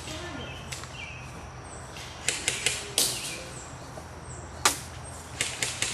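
Airsoft guns firing single shots: scattered sharp cracks, a quick run of three followed by a louder one, the loudest shot a little past the middle, and another run of three near the end.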